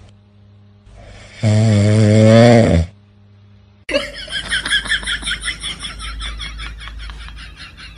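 A sleeping dog snoring: one long, loud snore with a wavering pitch starting about one and a half seconds in. From about four seconds in, background music with a quick pulsing beat takes over.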